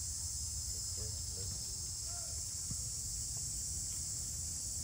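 Steady, high-pitched chorus of insects, with a steady low rumble underneath and a few faint voices.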